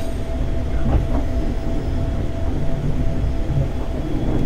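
JR 211 series 5000-subseries electric multiple unit running along the line, heard from inside the car: a steady low rumble of wheels on rail and running gear, with a faint steady tone above it.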